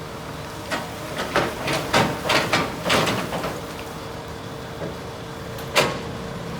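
Excavator engine running steadily, with a quick series of short, sharp knocks and scrapes from the working machine about a second in, and one more loud knock near the end.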